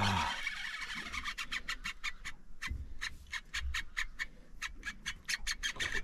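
Fishing reel clicking in a steady run, about four or five sharp clicks a second, after a person's drawn-out groan trails off at the very start.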